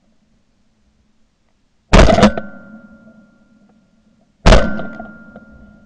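Two shotgun shots about two and a half seconds apart, each a sharp, very loud blast followed by a thin ringing tone that fades over a second or so. The shots are fired at a capercaillie on the ground.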